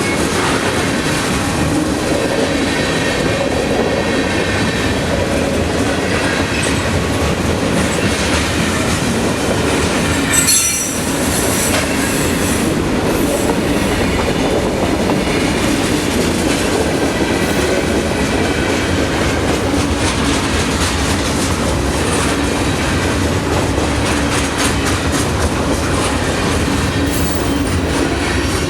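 CSX freight train rolling past, a steady rumble of wheels on rail with faint high squeal tones from the wheels. One brief knock about ten seconds in.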